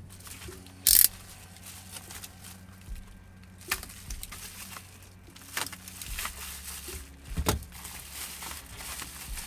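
Plastic bubble-wrap bag crinkling and crackling as hands cut and pull it open, in short irregular bursts, with one sharp loud crackle about a second in.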